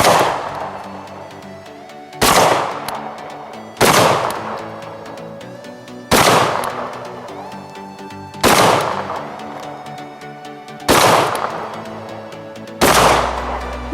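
Shotgun firing slugs, seven shots spaced roughly two seconds apart, each with a short echoing tail, over background music.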